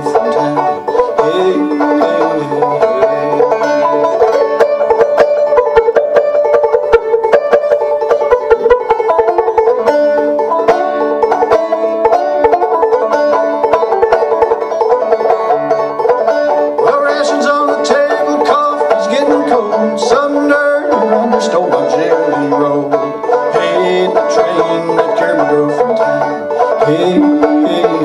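Five-string banjo played solo, picking an old-time tune with a steady rhythm.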